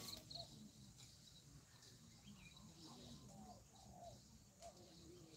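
Near silence: faint rural ambience with distant bird calls, including short chirps at the start.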